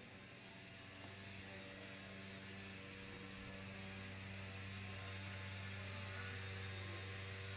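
Running HVAC equipment giving off a steady low electrical hum, one low tone with its overtones, slowly growing a little louder.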